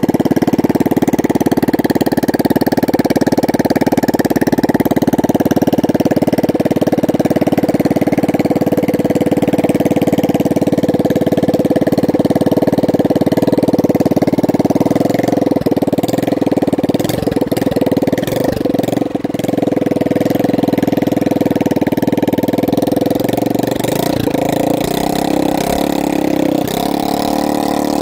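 Small gasoline engine of a homemade boat motor running through a homemade exhaust-wrapped muffler, a steady rapid putter. About halfway through the note shifts and wavers for a while, then settles again.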